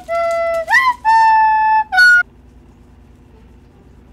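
A short flute-like melody of a few held notes, with one upward slide in the middle, ending about two seconds in.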